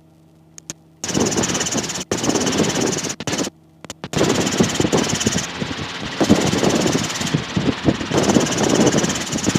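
Robinson R22 helicopter's engine and rotor noise picked up by the cockpit intercom: a steady hum under uneven, gusty noise. The pickup cuts out to near silence for about the first second and again briefly about three and a half seconds in.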